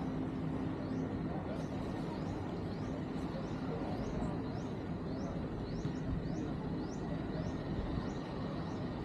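Outdoor beach ambience: a steady noise with a low hum that fades in the first second or so, while a short rising chirp repeats about twice a second from about a second and a half in.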